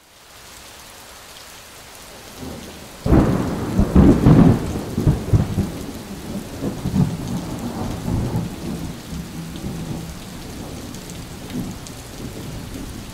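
Steady rain, with a clap of thunder breaking about three seconds in, loudest about a second later, then rumbling on and slowly dying away.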